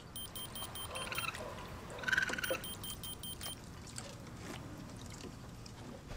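Raccoons rummaging and clattering through a child's plastic wading pool, with scattered knocks and rustles and a louder moment about two seconds in. Over it, a rapid electronic beeping of about six a second comes and goes in the first three and a half seconds: the telemetry receiver downloading data from a raccoon's radio collar.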